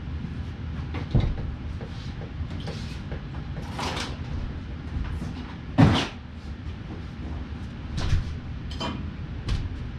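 Irregular metal clunks and knocks of tools and parts against the car's front steering and suspension as a part is worked loose, about five in all, the loudest about six seconds in. A steady low hum runs underneath.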